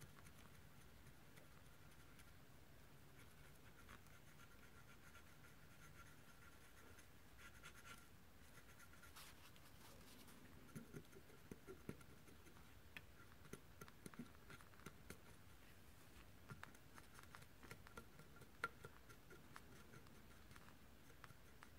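Cotton swab scrubbing old thermal paste off a graphics card's GPU chip: faint, soft scratching. In the second half it turns busier, with many small ticks and scrapes.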